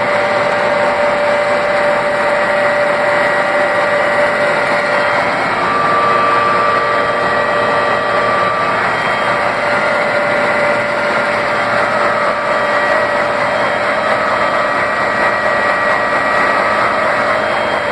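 Vertical milling machine running steadily while its spindle drives a rotating friction stir welding tool along the joint between metal plates: an even mechanical noise with a few held whining tones, one more joining about five seconds in.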